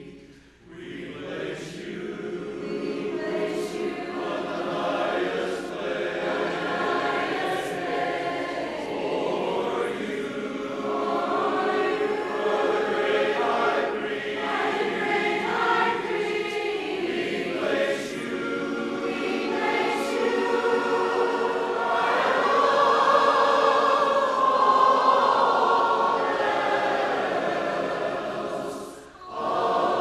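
Congregation singing a hymn together, many voices in one sound, with brief breaks between phrases just after the start and near the end.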